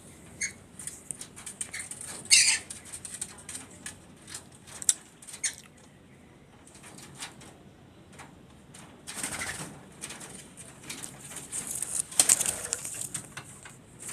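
Red-and-blue lories (Eos histrio) moving and calling: a run of short scratchy clicks, broken by a few louder harsh screeches, the loudest about two seconds in.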